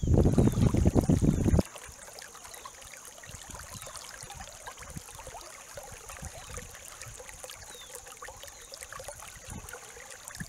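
Shallow river water trickling and rippling over gravel bars, a faint, even sound. For about the first second and a half a loud low rumble covers it, then cuts off suddenly, with a steady thin high hiss running underneath throughout.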